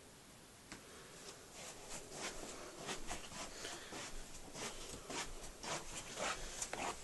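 Soft footsteps on carpet, a faint uneven series of scuffs about two a second as someone walks.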